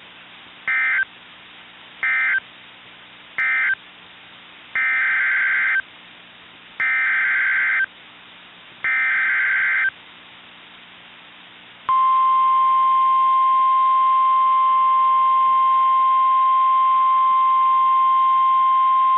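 NOAA Weather Radio alert signalling. First come three short bursts of warbling data tones, the end-of-message code closing the previous warning. Then come three longer bursts of about a second each, the SAME digital header for the next tornado warning. About twelve seconds in, the steady 1050 Hz weather radio warning alarm tone starts and holds loud and unbroken.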